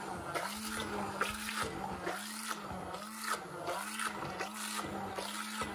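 Immersion blender running in custard cream, its motor hum dipping and recovering about every three quarters of a second as it is worked through the cream.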